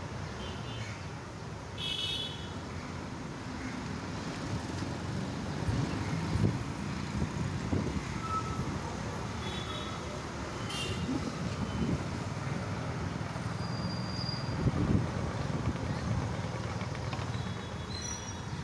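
Steady hum of road traffic, with a few short vehicle horn toots.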